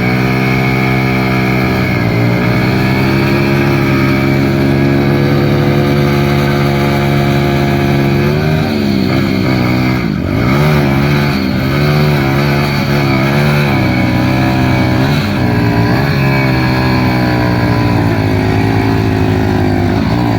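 Motorcycle engine running at high revs, its pitch steady for the first several seconds, then repeatedly rising and falling as the throttle is worked.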